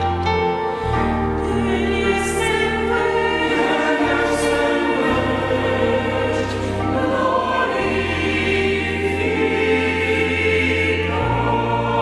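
Church choir singing a Romanian Christmas hymn in slow, long-held chords, over an accompaniment whose sustained bass notes change every few seconds.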